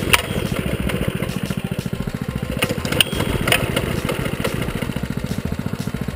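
Baja mini bike's small single-cylinder engine idling with a steady, rapid putter, after being dumped in the mud. A few sharp clicks and knocks come through over it.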